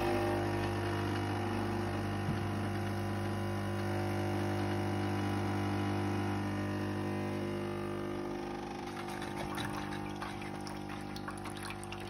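Melitta Caffeo Solo espresso machine's vibration pump humming steadily as it runs the descaling cycle. From about eight seconds in the hum weakens and liquid trickles and splashes from the spout into a stainless steel jug.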